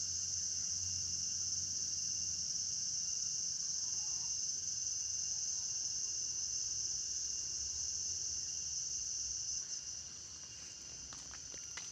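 A steady, high-pitched chorus of insects that drops in level about ten seconds in. Near the end, a few footsteps scuff on a concrete path.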